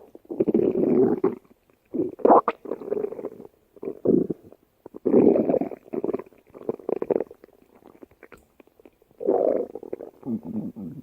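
Stomach growling: a run of irregular gurgling rumbles, each about half a second to a second long, with short pauses between them.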